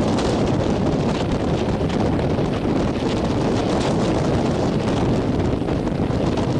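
Strong wind buffeting the microphone over the wash of rough, breaking sea: a loud, steady rumble that does not let up.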